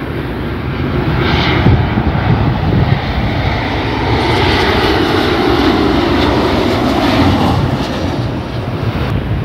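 Twin-engine jet airliner, a United Boeing 737 on landing approach with its gear down, passing overhead: a steady jet engine rumble and whine that swells about four seconds in and eases off after about seven.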